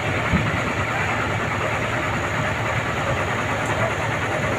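Heavy road-paving machinery engines running steadily, with one short knock about a third of a second in.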